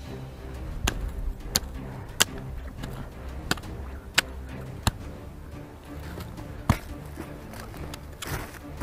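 Pickaxe striking hard, dry soil: about seven sharp blows, roughly one every two-thirds of a second, with a longer pause before the last. Soft background music plays underneath.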